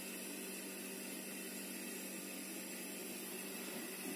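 Quiet room tone: a steady faint hiss with no distinct sounds.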